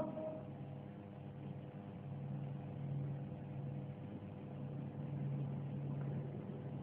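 A pause in Quran recitation. The reciter's last held note fades out in the first half-second, leaving a faint steady low hum and hiss from an old broadcast recording.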